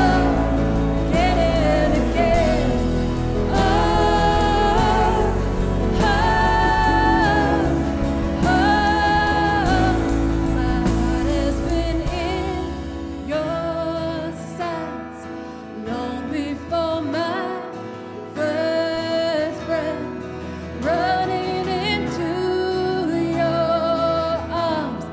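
Live church worship band and singers performing a song. About halfway through, the bass and drums drop out, leaving the voices over softer accompaniment.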